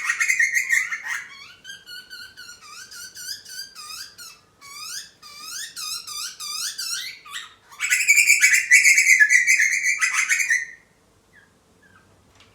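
Butcherbird calls at a feeding: a loud, harsh, rasping call in the first second and again for about three seconds from near 8 s, with quick runs of short squeaky notes in between. The sound fits a young bird begging for food.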